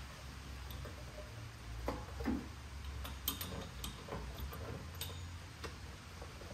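Irregular metallic clicks and ticks of a hand wrench being worked on a bolt of a VW Beetle engine, over a steady low hum.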